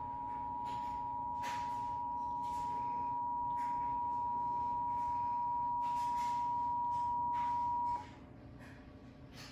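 Emergency Alert System attention signal: two steady tones sounding together (853 and 960 Hz) for about eight seconds, then cutting off abruptly. It heralds an emergency alert, here a child abduction (Amber) alert.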